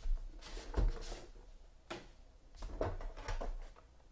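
Trading cards being handled on a table: a series of short rustles, slides and taps as cards are moved and set down.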